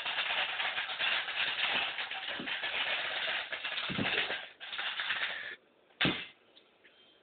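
Dense rustling and crackling, breaking off about five and a half seconds in, then a single thump about half a second later.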